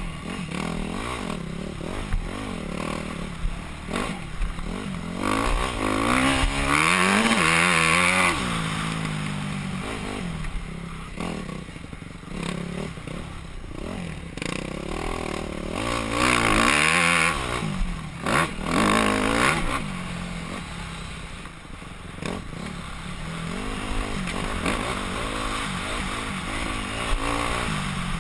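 Yamaha YZ250F four-stroke single-cylinder dirt bike engine revving up and down with the throttle as it is ridden, heard close from a helmet camera. It pulls hard to high revs twice, around six to eight seconds in and again around sixteen seconds in, with rattling and scraping from the bike over rough ground.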